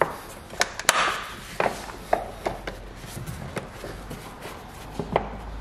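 Hard plastic battery compartment cover being fitted and pressed into place: a series of irregular plastic clicks and knocks, with a brief scrape about a second in.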